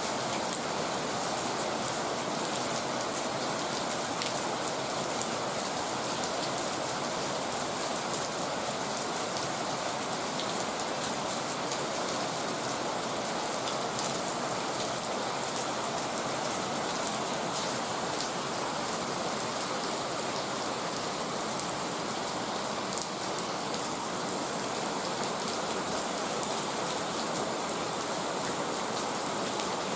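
Heavy rain falling steadily, a dense even hiss with many individual drops pattering on surfaces.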